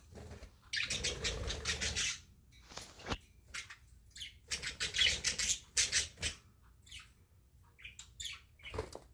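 Pet budgerigars chattering and chirping in bursts, the loudest stretches about a second in and again around five seconds, with short single chirps in between and near the end.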